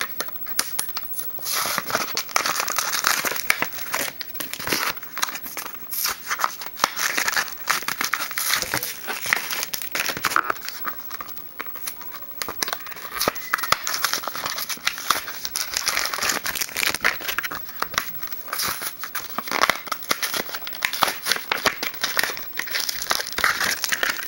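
Foil wrappers of trading-card booster packs being handled and torn open, a continuous irregular crinkling and crackling.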